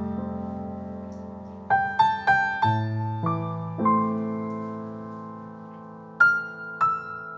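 Slow, gentle piano music: held chords, with a short run of single notes struck about two seconds in and two more struck near the end.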